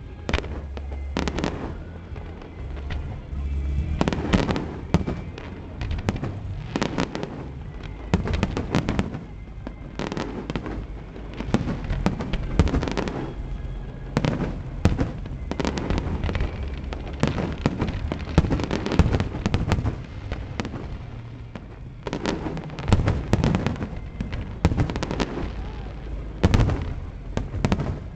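Fireworks display going off in rapid succession: many sharp bangs and crackles packed closely together, coming in denser, louder clusters every few seconds.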